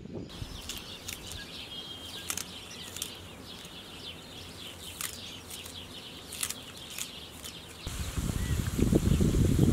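Birds chirping outdoors with short crisp snaps as green onions are cut by hand. About eight seconds in, a much louder bubbling sizzle takes over: peeled potatoes frying in hot oil in a pan.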